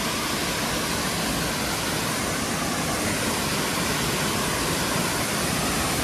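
Waterfall pouring onto rock and into a shallow pool: a steady, even rush of falling water.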